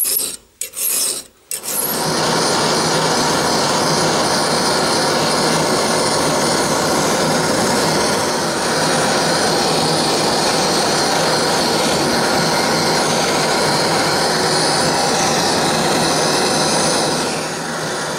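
Two strokes of a hand file on steel rods clamped in a vise. From about two seconds in comes the steady hiss of a gas torch flame, which drops slightly in level near the end.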